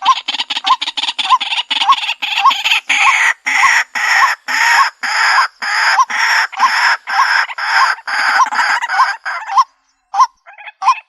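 White-breasted waterhen calling: a fast, rhythmic run of harsh repeated notes, two to three a second, that breaks off near the end into a few scattered calls.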